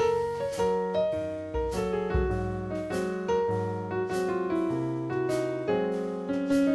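Piano music: a melody of struck notes, a note or two every half second or so, each fading after it is struck, over low bass notes.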